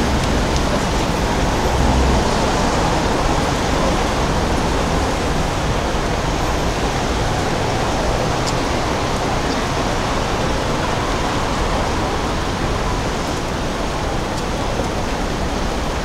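Steady city traffic noise at a busy street intersection: an even rush of cars passing, with a low rumble about two seconds in.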